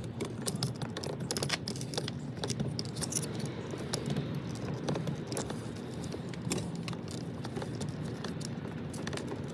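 Many small plastic clicks and rattles as a car's power window switch and its wiring connector are handled and unplugged, a flathead screwdriver pressing down the connector's locking clip.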